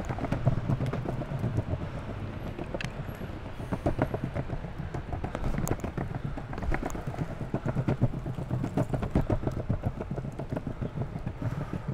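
Longboard wheels rolling over stone paving slabs: a steady low rumble broken by many quick clacks as the wheels cross the joints between slabs.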